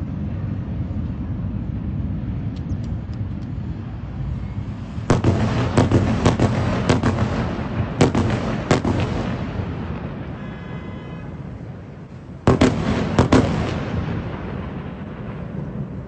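Airstrike explosions over a steady low rumble: a quick run of sharp blasts starts about five seconds in and lasts some four seconds, then a second short burst of blasts comes about twelve seconds in and fades away.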